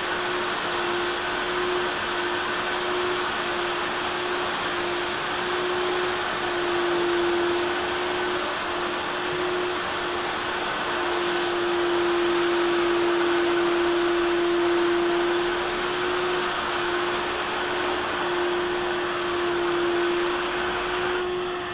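Kärcher single-disc rotary floor machine running, its motor giving a steady hum with a slightly wavering pitch over a hiss of noise as the spinning brush scrubs shampoo into a carpet.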